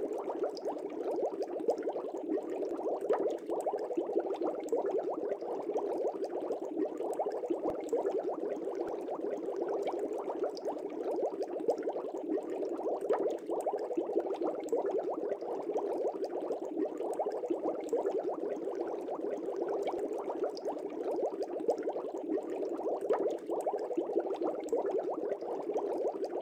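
Water bubbling steadily and densely: aquarium bubble sound.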